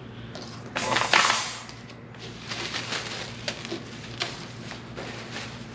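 Clear plastic packaging bag crinkling loudly for under a second about a second in as it is pulled out, followed by lighter rustling and a few small knocks.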